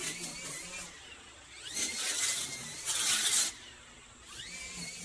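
Makita 18V brushless cordless string trimmer running at a distance, its nylon line hissing through grass and weeds in bursts, loudest for about a second and a half in the middle.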